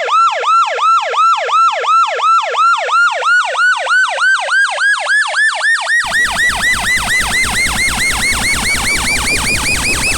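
Police siren in yelp mode: fast, repeated up-and-down wails, about three a second at first, quickening and climbing in pitch throughout. About six seconds in, the tone turns rougher, with a buzzing noise underneath.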